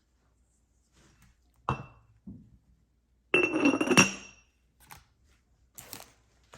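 Candies clattering and clinking against glass. A single sharp knock comes about a second and a half in, then a longer rattling clatter with a ringing clink a little past three seconds in, and a few light taps near the end.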